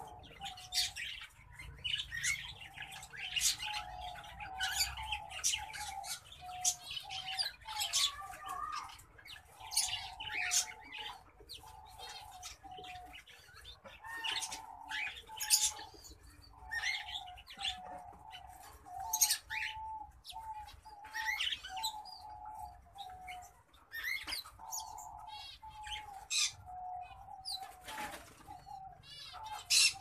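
Small caged finches, a green singing finch and a black-throated canary, chirping and singing short high phrases over and over, with wing flutters as they hop and fly about the wire cage.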